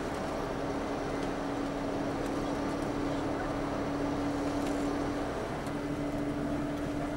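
Steady engine and road noise heard inside a moving tour coach, with a constant low hum that drops out briefly about five seconds in.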